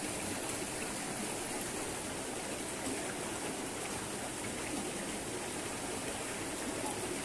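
Shallow stream running over and between rocks: a steady rush of flowing water.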